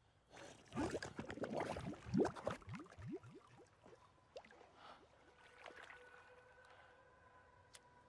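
Bubbles gurgling up through still pond water: a quick run of short rising blips that thins out after about three seconds. A faint steady hum enters about halfway through.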